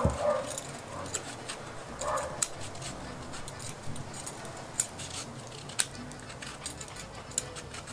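Vegetable peeler scraping the green rind off a raw pumpkin slice in short, irregular strokes, with scattered sharp clicks as the blade catches and leaves the rind.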